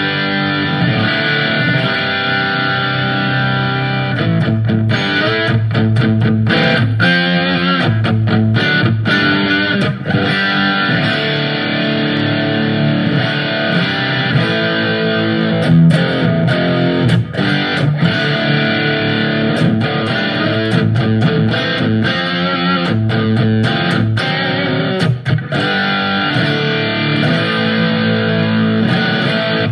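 Electric guitar, a PRS Custom 22 hardtail, played through the Sonicake Matribox II Pro multi-effects processor's first preset with its amp and effects. It is a continuous run of chords and picked lines that cuts off abruptly at the end.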